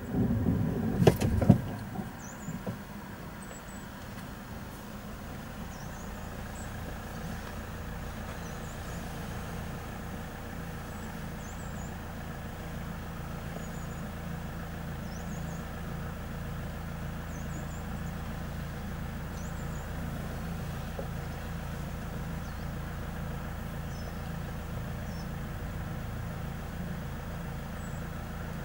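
Road vehicle engine idling with a steady low hum that grows slowly louder, with small bird chirps over it; a few loud knocks sound about a second in.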